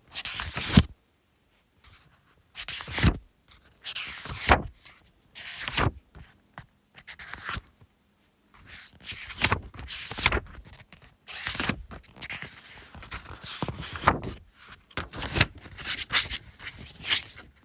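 Paper pages being turned one after another: a dozen or so crisp rustling swishes at an uneven pace.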